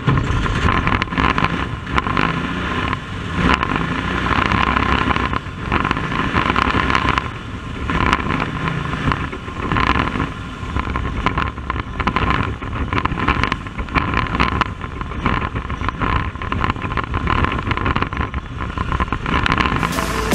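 Bandolero race car's Briggs & Stratton V-twin engine running, heard from inside the cockpit, with an uneven, fluctuating level.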